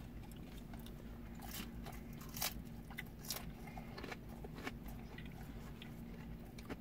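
Chewing and biting on thin-crust Philly cheesesteak pizza, with a dozen or so short crunchy crackles scattered through the chewing.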